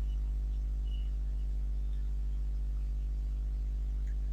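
Steady low electrical mains hum with a buzz of overtones, picked up by the recording setup.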